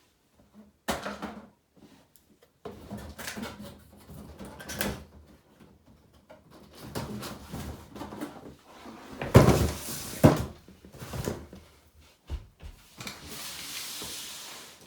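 A cardboard box and its contents being handled and unpacked: irregular knocks, scrapes and rustles, with one loud thump about nine seconds in and a steadier rustle near the end.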